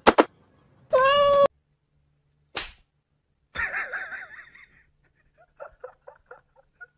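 Cats meowing: one clear, steady meow about a second in that cuts off abruptly, a sharp knock a moment later, then a rougher, wavering call and a quick run of short, faint calls near the end.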